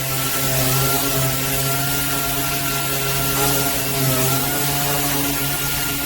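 Dual-action (DA) sander running steadily with 80-grit paper on the truck's body panel, a constant motor hum and hiss, feathering out the old paint layers to prepare the area for body filler.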